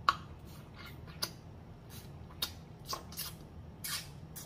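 Close-miked mouth sounds of eating turkey neck meat by hand: wet lip smacks and clicks as he chews and sucks the meat off his fingers, coming as a scatter of short sharp clicks, the loudest right at the start.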